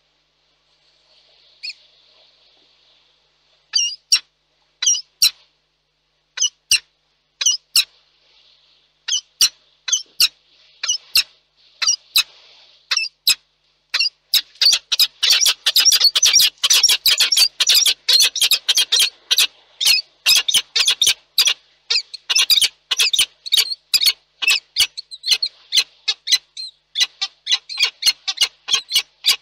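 Peregrine falcons calling: sharp, high, squeaky calls, a few spaced about a second apart at first, then from about 14 s in a fast, nearly continuous string of calls.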